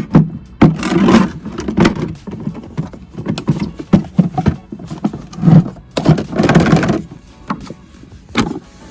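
Irregular rustling, scraping and knocking of plastic vacuum parts and packaging being handled, with several sharp clicks and a longer scraping stretch about six seconds in.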